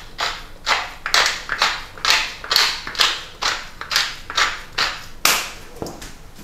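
Wooden pepper mill grinding black peppercorns: a gritty crunch with each twist, about two twists a second, stopping near the end.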